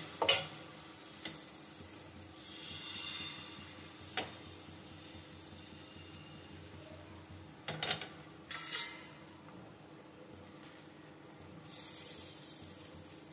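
Egg batter sizzling faintly on a hot tawa, with a steel ladle clinking and scraping against the pan as the batter is spread: a few sharp knocks near the start, about four seconds in, and a cluster around eight seconds.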